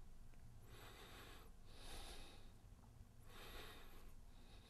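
Near silence, with three faint, soft breaths about a second and a half apart.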